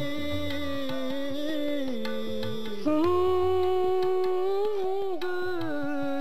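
Sikh kirtan music: one long held melody line that slides between notes and steps up to a higher, louder note about three seconds in, over soft tabla strokes.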